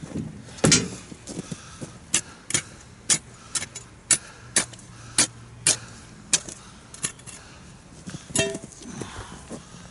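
Steel ice chisel chopping open a refrozen ice-fishing hole: a run of sharp strikes, about two a second, with a last strike near the end that rings.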